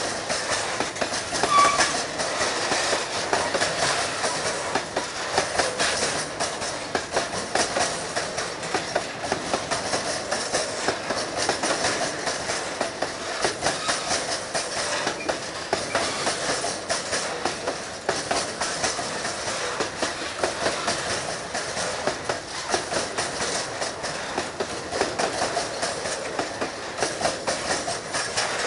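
Freight train of railway tank wagons rolling past close by: steel wheels clicking and clacking over the rail joints in a steady, continuous stream.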